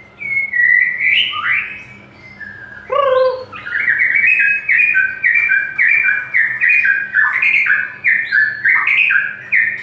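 White-rumped shama (murai batu), black-tailed Medan type, singing. It gives a few short whistled phrases, then from about three seconds in a long run of quick repeated notes, about three a second.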